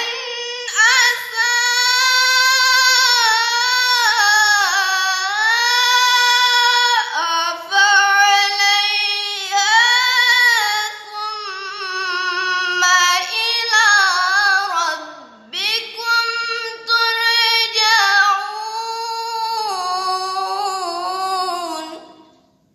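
A girl's voice in melodic Quran recitation (tilawah), drawing out long, ornamented sung notes that glide up and down in pitch. There is a short break for breath about two-thirds of the way through, and the phrase fades out near the end.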